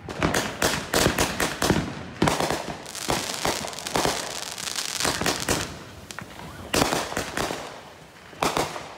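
"LA Night" consumer fireworks cake firing: a rapid string of shot launches and aerial bursts with dense crackling. Two short lulls come in the second half, each followed by a few more bangs.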